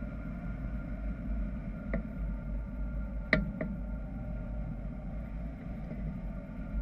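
Airflow rushing past a Bautek Saphir hang glider in flight, heard as a steady wind rumble on the glider-mounted camera's microphone. There is one click about two seconds in and a louder pair of clicks a little past three seconds.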